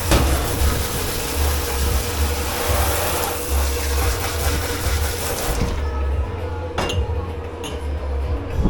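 Water spraying hard, as from a dish pit's pre-rinse spray tap, shutting off about five and a half seconds in, then a couple of sharp knocks of crockery or metal. A steady low machine hum runs underneath.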